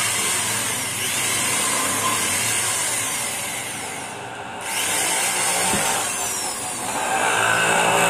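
Electric hand drill boring out an aluminium rivet in a mixer-grinder motor's aluminium end bracket. The drill runs steadily, with a brief lull about halfway through.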